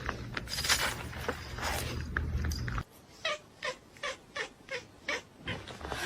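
A cat calling in a quick run of short meows, about three a second, starting about three seconds in. Before that there is a noisy stretch with a low hum.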